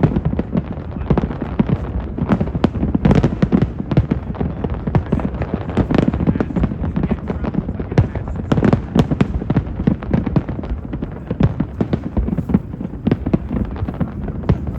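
Fireworks display: a dense, continuous barrage of booms and crackling bangs, several a second without a break, over a constant low rumble.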